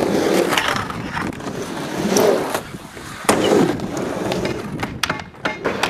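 Skateboard wheels rolling across a skatepark ramp, the rolling noise swelling and fading in surges as the rider pumps the transitions, with several sharp clacks from the board and trucks.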